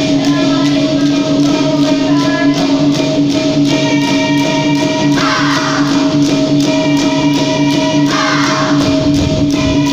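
Dikir barat ensemble playing: a steady held drone with fast, even percussion strokes on top.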